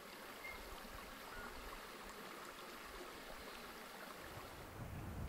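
Faint steady rush of river water flowing out through the estuary. A low rumble of wind on the microphone builds near the end.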